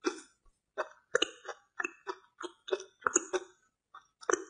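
Close-miked chewing of a mouthful from a plate of cooked worms, in short, uneven chews about three a second.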